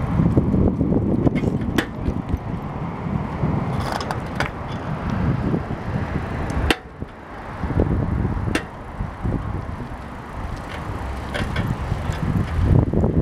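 Wind buffeting the microphone on a moving bicycle: a loud, uneven low rumble that eases briefly about seven seconds in, with a few sharp clicks scattered through it.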